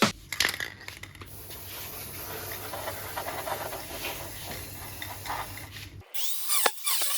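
Welding the steel running board: a steady crackling hiss over a low hum, which cuts off abruptly about six seconds in and gives way to a brighter scraping tool noise.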